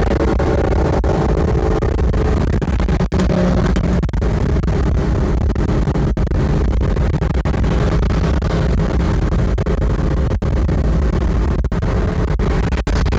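Cabin noise of a Fiat Coupé cruising at motorway speed: a steady low rumble of engine and road noise with no change in speed.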